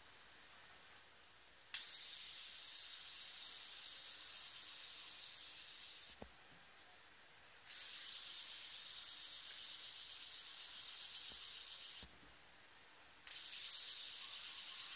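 A fidget spinner's ball bearing whirring with a steady high hiss, three times: it starts suddenly about two seconds in, stops about six seconds in, starts again near the eight-second mark, stops around twelve seconds, and starts once more near the end.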